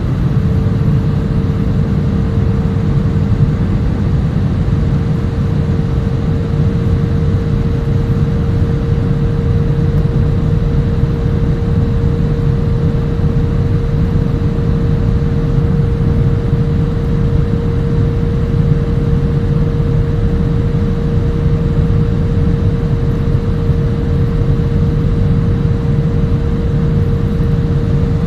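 Jet airliner cabin noise in flight: the steady rush and drone of the engines and airflow, with a steady whine held at one pitch.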